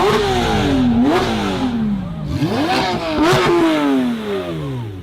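Supercar engine revved several times, each rev rising quickly in pitch and then falling away slowly over one to two seconds.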